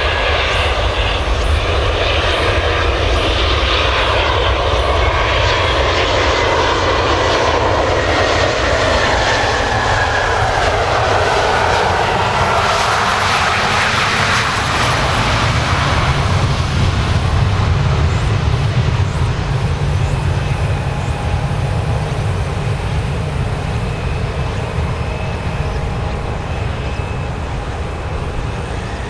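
Boeing 737-400's CFM56 turbofan engines on a landing pass: a jet whine that falls slowly in pitch over the first half, then a deep rumble that swells about halfway through and slowly fades.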